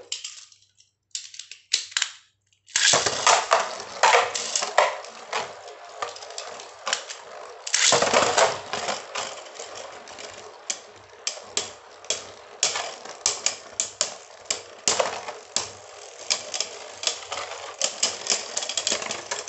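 Two Beyblade Burst spinning tops clashing in a plastic stadium bowl: rapid, irregular clicking and clattering as they strike each other and the bowl wall. The clatter starts about three seconds in, after a few scattered clicks.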